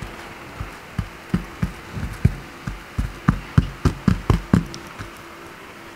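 A hand patting a blotting cloth down onto wet painted fabric to soak up excess colour: about fifteen soft, low thumps, closer together in the middle, stopping about five seconds in.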